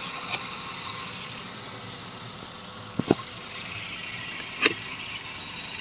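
A steady engine-like rumble and hiss, broken by a few sharp knocks: a double knock about three seconds in and another about four and a half seconds in.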